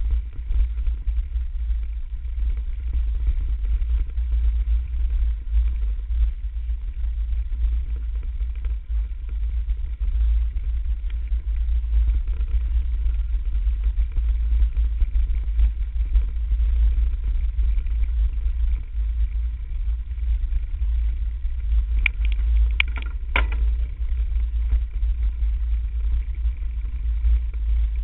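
Steady low rumble of wind buffeting and trail vibration on the microphone of a camera riding on a mountain bike over a dirt forest trail. A brief cluster of sharp clicks or rattles comes near the end.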